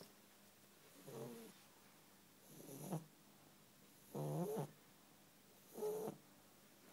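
Sleeping bulldog snoring: four pitched, rattly snores about a second and a half apart.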